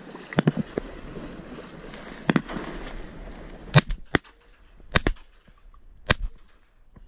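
A volley of about seven shotgun shots, some in quick pairs, fired at ducks passing overhead.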